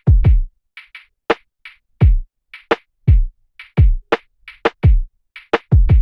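Electronic drum-machine loop: a deep kick drum that drops in pitch on each hit, a sharp snare and short hi-hat ticks, in a steady pattern. It plays through Ableton's Glue Compressor with the threshold all the way down and the range capping gain reduction at 5 dB, so the compression is heavy but controlled.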